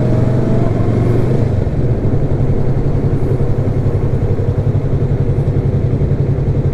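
Yamaha YZF-R3 parallel-twin engine running steadily at low revs as the bike rolls slowly and slows down in traffic.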